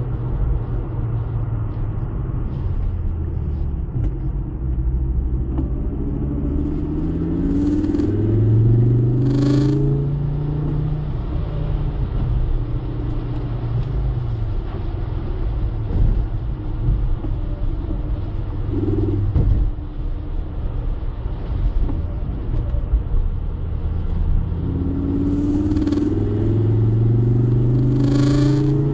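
Ford Focus ST's turbocharged five-cylinder engine and road noise heard from inside the cabin on a wet road, cruising steadily, with the engine note rising as the car accelerates about a third of the way in and again near the end.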